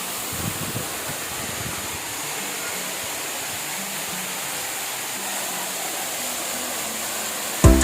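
Steady rushing of a waterfall. Loud music with drums cuts in suddenly at the very end.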